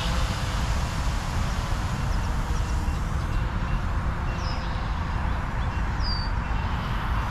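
Wind buffeting the microphone: a steady low rumble and rush. A few faint short bird chirps come through about two, four and six seconds in.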